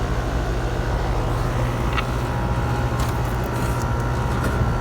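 Goodman heat pump outdoor unit running in cooling mode: a steady low hum under an even fan rush, with two faint ticks about two and three seconds in.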